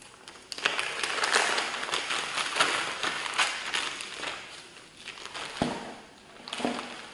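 Plastic packaging crinkling and crackling as a bundle of hair extensions is pulled out and handled, with a single sharp knock about five and a half seconds in and a brief last rustle near the end.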